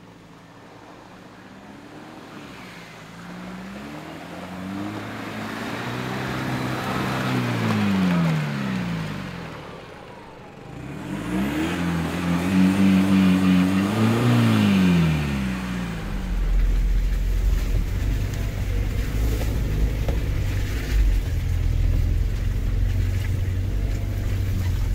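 Off-road 4x4's engine revving up and down in repeated surges as it works through mud, growing louder over the first eight seconds, easing off around ten seconds, then pushing again. From about sixteen seconds a steady deep rumble takes over.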